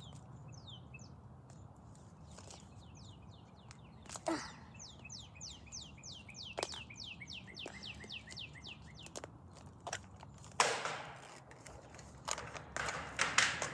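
A songbird singing a fast run of falling chirps, about four a second, from about four to nine seconds in. Near the end come two bursts of crinkly packaging rustling, with scattered clicks from handling it.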